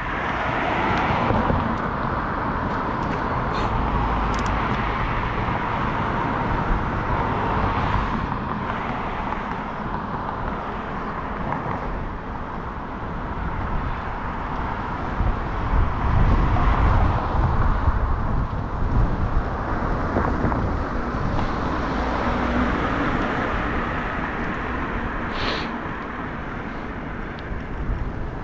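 Steady rush of wind on a GoPro microphone and tyre noise from a bicycle ride, swelling and easing, with road traffic mixed in.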